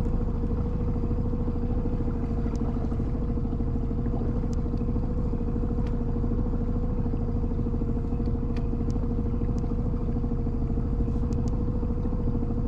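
Boat motor running at a steady speed, an even drone with a constant low hum.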